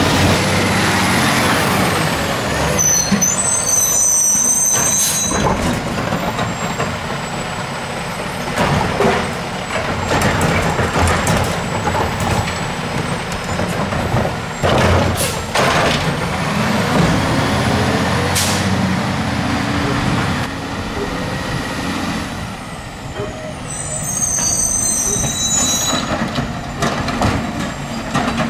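A Peterbilt 320 garbage truck with a Dadee Scorpion automated side-loader working curbside carts. Its diesel engine runs throughout, revving up and down as the hydraulic arm lifts and dumps the carts. Air-brake hisses and knocks come through, along with two spells of high squealing.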